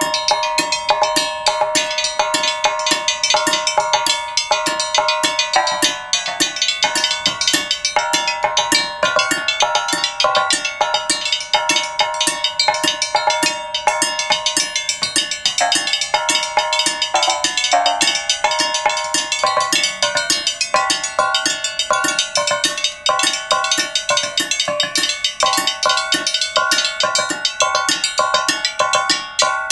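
Lengths of rectangular metal tubing laid across wooden trestles, struck with mallets and sticks by two players like a large metallophone. There is a fast, unbroken stream of strikes, several a second, and each leaves a ringing metallic note. The notes change pitch every second or so.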